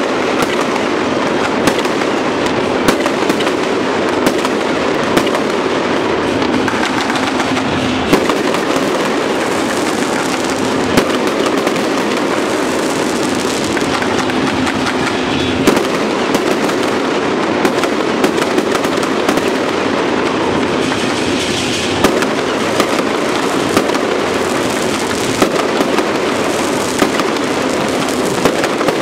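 Fireworks going off in a dense, continuous barrage: an unbroken rattle of bursts and crackle, with sharper, louder bangs standing out every second or so.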